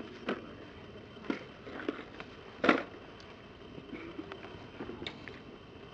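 A handful of scattered short knocks and clicks, the loudest about two and a half seconds in, over faint steady background noise.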